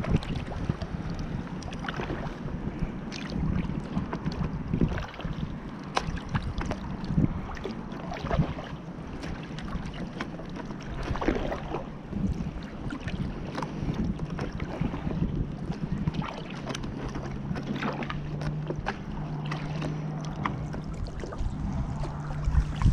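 A kayak being paddled: water splashes and drips from the paddle, with scattered sharp knocks and clicks. A low steady hum joins in for the last few seconds.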